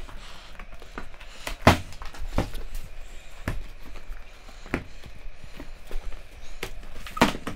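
Cardboard shipping box being handled on a tabletop: fingers pick at its plastic strapping and the box is tipped up onto its end, giving scattered knocks and scrapes, the loudest about a second and a half in and another near the end.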